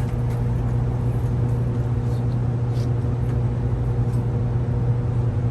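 Steady low mechanical hum with a few faint small clicks.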